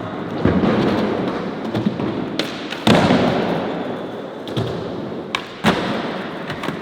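Skateboard wheels rolling with a steady rumble, broken by several sharp clacks and thuds of the board popping and landing; the loudest impact comes about three seconds in.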